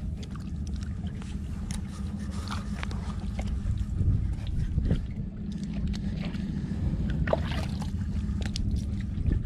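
Hands splashing and sweeping water across a wet concrete ledge to rinse off fish blood: a handful of short splashes and scrapes over a steady low rumble.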